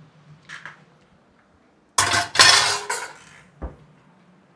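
Metal cooking vessels clattering and clanging for about a second, with a ringing note, as pots are moved about. A light clink comes before it and a short dull knock after it.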